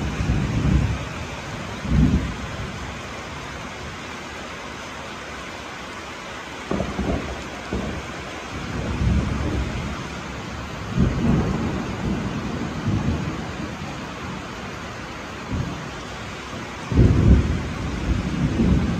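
Heavy rain falling steadily in a tropical thunderstorm, with thunder rumbling in repeated rolls: once near the start, again around the middle, and loudest near the end.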